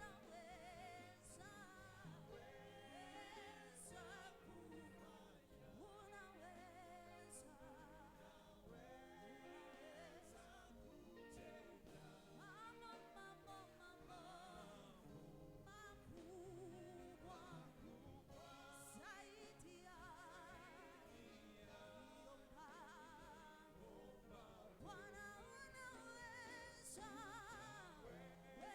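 Faint church worship music: singing voices with vibrato over sustained instrumental accompaniment.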